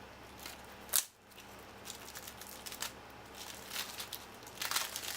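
Handling and opening a trading card deck and its packaging: one sharp click about a second in, then scattered crinkling and rustling of wrapper and cards.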